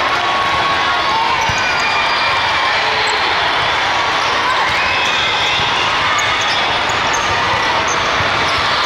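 Indoor volleyball gym din: balls being hit and bouncing on a hard court, over a steady background of many distant voices echoing in a large hall.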